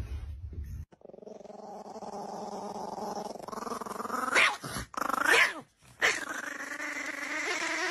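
Chihuahua puppy growling steadily, breaking off for three short high yaps in the middle of the growl.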